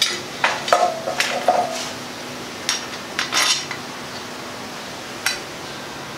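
Metal bike steering parts clinking and clicking together as they are fitted by hand. There are several sharp clicks close together in the first two seconds, then a few sparser ones, and one or two leave a short ring.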